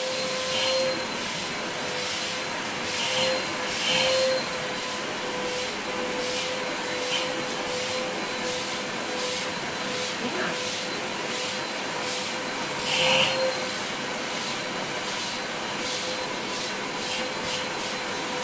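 Canister vacuum cleaner running steadily with a high whine and rush of air, its hose nozzle being run over a dog's short coat. The level swells briefly a couple of times as the nozzle moves.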